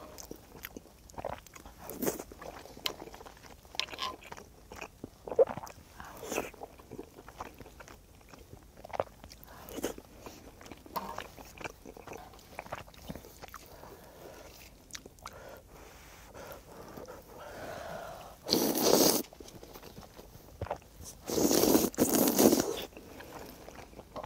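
Close-up eating sounds from tteokbokki with ramen noodles: chewing with soft, wet mouth clicks. Two louder rushing noises come near the end.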